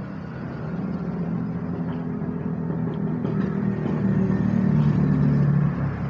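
A motor vehicle's engine running close by: a steady low hum that grows louder and then falls away near the end, as a vehicle passing on the road.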